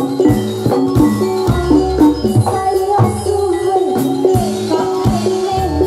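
Javanese gamelan music for a Jathilan horse dance: struck metallophones ringing over a busy pattern of drum strokes.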